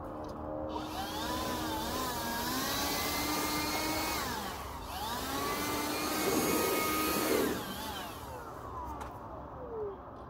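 Small electric motors of an RC model whining, the pitch rising and falling as the speed changes, over a hiss. The whine starts under a second in, dips about halfway, picks up again with a louder, rougher stretch, then fades out with a falling tone near the end.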